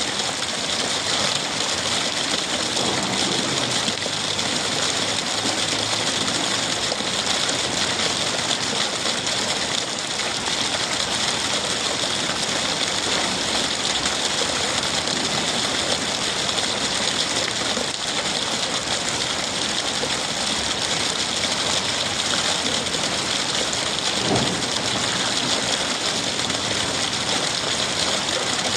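Rainwater trickling and splashing down from a roof gutter in steady rain: a continuous, even hiss of falling water, with a slightly louder splash about three-quarters of the way through.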